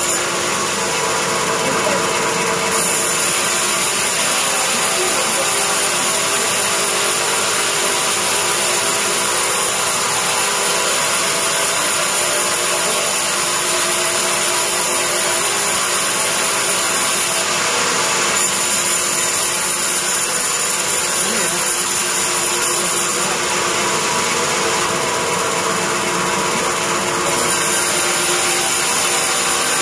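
A sawmill bandsaw running steadily, its blade cutting lengthwise through a hard teak beam.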